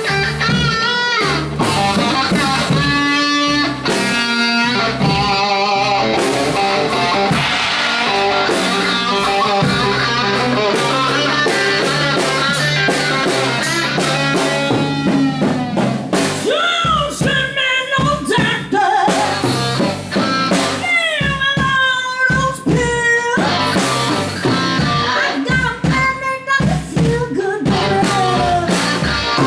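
Live band music: guitars and a drum kit playing together.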